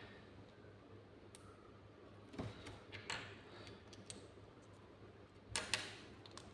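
Faint clicking and handling of small plastic LEGO minifigure parts, with a few sharper clicks, the loudest about five and a half seconds in.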